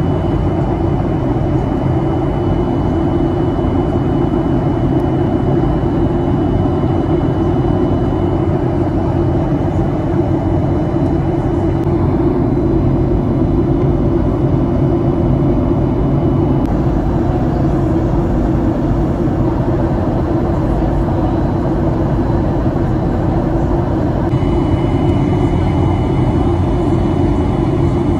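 Steady cabin noise of an airliner in flight, heard from a passenger seat: a constant low rumble of the jet engines and rushing air, with a faint steady high whine above it.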